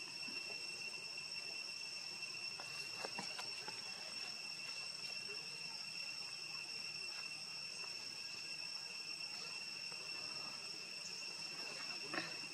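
Insects droning steadily in a high, even pitch, holding two constant tones throughout, with a brief faint noise near the end.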